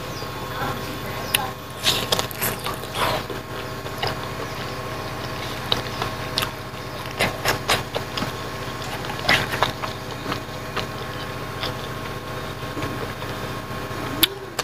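Close-up chewing and mouth-smacking of a person eating rice and boiled pig trotters by hand, a scatter of short wet clicks, over a steady low hum.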